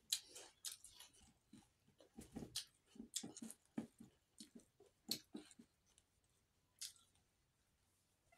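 Close-up eating noises: fingers working rice and fried fish on a plate, with chewing and lip smacks. A scatter of short, faint clicks and smacks that thins out after about six seconds.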